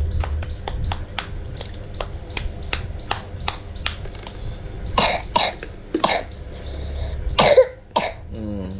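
A child clapping his hands, quick light claps at about four a second for the first few seconds. Then several loud coughs, and a short falling vocal sound near the end.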